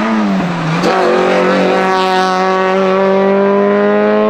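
Race car engine running hard at high revs. The engine note dips in the first half second, then picks up and holds high, rising slowly.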